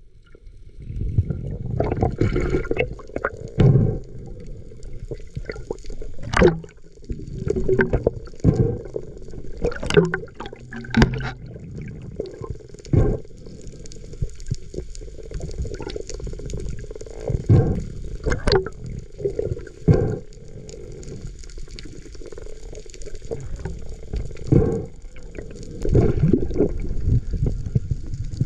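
Muffled underwater water noise heard through a camera's waterproof housing, mostly low in pitch. Irregular knocks and clicks run through it.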